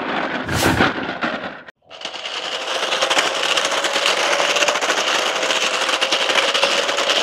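Battery-powered RX Racing 4WD RC stunt car running, its motor whine under a rapid rattling clatter. The sound cuts out briefly about two seconds in, then comes back steady, with the motor tone slowly rising.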